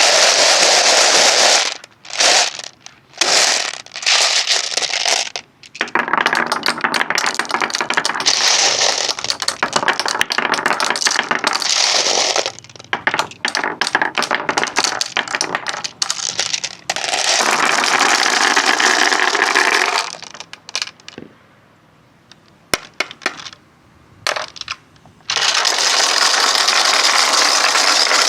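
Marbles rolling and clattering along wooden marble-run tracks, with many small clicks as they hit joints and edges. The rolling comes in several long stretches broken by short pauses. A quieter spell about two thirds of the way through holds only a few scattered clicks before the rolling picks up again.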